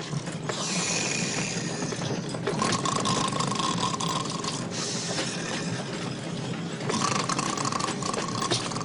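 Loud, exaggerated snoring: long noisy breaths alternate with breaths that carry a steady whistling tone, each about two seconds long, with a mechanical-sounding rattle throughout.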